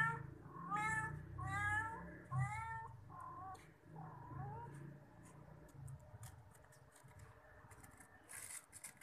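Cats meowing: a run of five or six rising meows in the first half, the first few loudest, then fading to soft scattered clicks and rustles.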